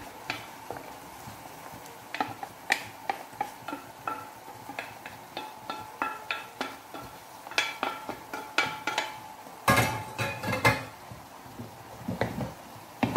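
Wooden spoon knocking and scraping steamed diced eggplant out of a stainless-steel steamer basket into a frying pan: a run of clacks and ringing metal taps, with a denser, louder clatter about ten seconds in.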